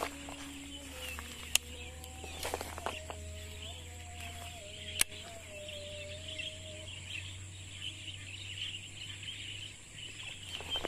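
Steady high chirring of evening insects, with a faint drawn-out tone that wavers and steps in pitch through the middle, and two sharp clicks, one at about a second and a half in and one at about five seconds in.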